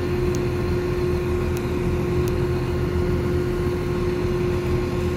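Northern Ireland Railways Class 4000 diesel multiple unit idling while stationary: a steady low engine rumble with a constant hum over it.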